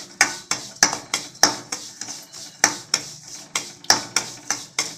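A spoon scraping and knocking against a steel kadai in quick, regular strokes, about three to four a second, while stirring semolina roasting in ghee with cashews.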